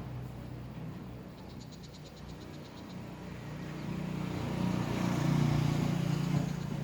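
Motorcycle engine running, swelling louder toward its peak about five seconds in and easing off near the end. A short rapid high-pitched trill sounds over it from about one and a half to three seconds in.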